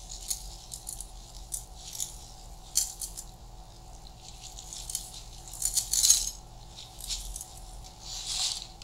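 Raw rice grains poured from a plastic bag, pattering and rattling onto a pan of layered potato slices and mussels in short spurts, with light crinkling of the bag.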